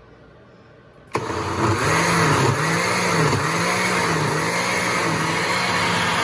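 Countertop blender switched on about a second in and running steadily, pureeing canned tomatoes for sauce. Its motor pitch wavers up and down about once a second.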